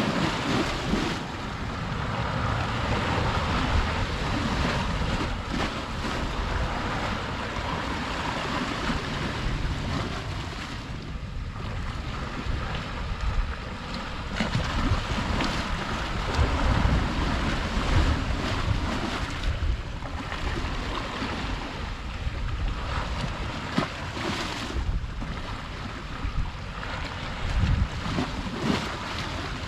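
Sea waves washing in and drawing back in a steady wash that swells and eases every few seconds, with wind buffeting the microphone as a low rumble.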